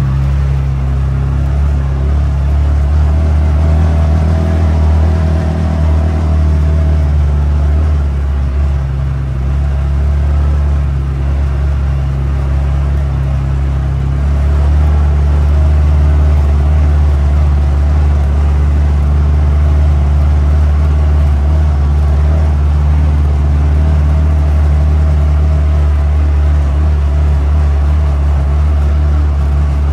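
CFMOTO UForce 600 side-by-side's engine running as it drives, a steady drone whose pitch shifts a few times as the throttle changes.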